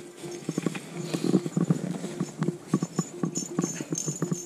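Small ice-fishing reel being cranked by hand to bring a hooked fish up through the ice hole: a run of irregular clicks and knocks.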